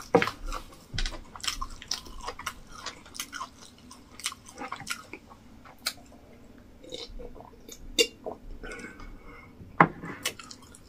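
Close-up mouth sounds of a person chewing a mouthful of rice and stew: irregular wet clicks and lip smacks.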